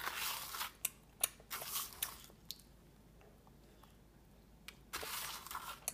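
A small child chewing a dry, crunchy crumb mix of graham crackers, dry oatmeal and crushed Oreo cookies, in a few short bursts of crunching, then a pause of about two seconds, then more crunching near the end.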